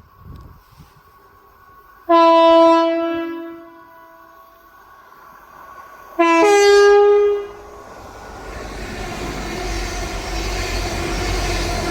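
Train horn sounded twice, each blast about a second long, the second one stepping up in pitch just after it starts. Then an approaching train's rumble builds steadily louder.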